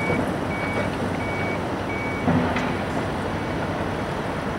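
A construction-vehicle reversing alarm beeps at one high pitch about every 0.7 seconds, four times, then stops about two seconds in. Steady noise from heavy earthmoving machinery runs underneath. A single sharp knock, the loudest sound, comes just after the beeps stop.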